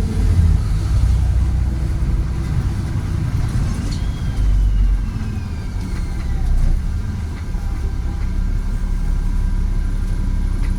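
Volvo B7RLE bus's six-cylinder diesel running under way, a steady heavy rumble that swells and eases. A thin whine falls in pitch about four seconds in.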